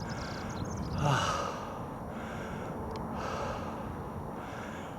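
A man breathing hard while climbing a steep hill, with a breath about once a second and a louder gasp about a second in.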